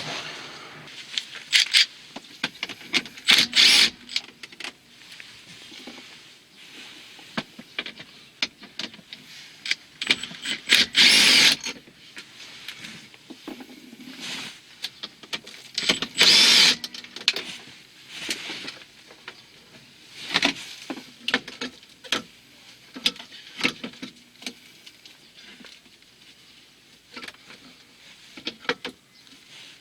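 Clicks, knocks and rattles of hand tools and plastic parts being handled while the blower motor is removed, with three louder bursts of about a second each, a few seconds in, at about 11 s and at about 16 s.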